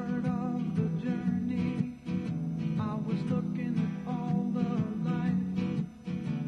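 Background music: a song led by guitar.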